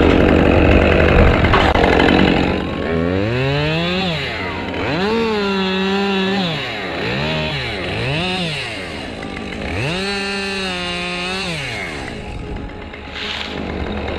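Two-stroke top-handle chainsaw cutting through a eucalyptus limb at full throttle, then revved up and let back down to idle about five times.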